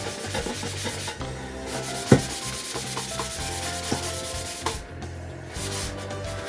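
A cloth rubbing over the painted top cover of a Sony mini component system in quick repeated strokes, working polish into worn black paint. The rubbing pauses briefly twice, and there is one sharp knock about two seconds in.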